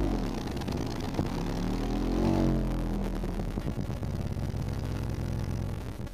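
Mystery MO 10S car-audio subwoofer playing loud deep bass, its cone moving hard. The low notes slide up and down in pitch for the first two seconds or so, then settle into steadier low tones with a buzzing edge.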